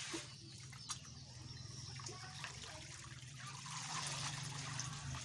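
Water splashing and trickling as catfish fry are scooped from a tarpaulin pond with a plastic colander; the trickle grows louder in the last second or so as water drains out through the colander's holes. A steady low hum runs underneath.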